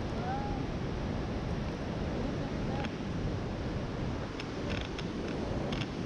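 Steady rushing roar of a waterfall's water pouring over rocks, with a few light handling clicks near the end.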